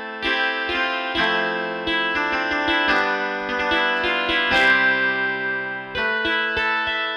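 Sampled Stratocaster electric guitar from East West's Quantum Leap Stratocaster library, clean tone, playing ringing chords and picked notes. A new note or chord is struck about twice a second.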